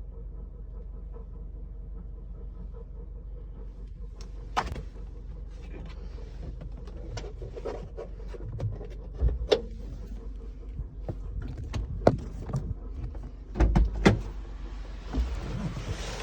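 2004 Honda Element's 2.4-litre four-cylinder engine running with a steady hum, joined from about four seconds in by irregular sharp clicks and knocks, and a rising hiss near the end. It is a noise the owner cannot place: a new idler pulley did not change it, and the three-month-old alternator tests fine.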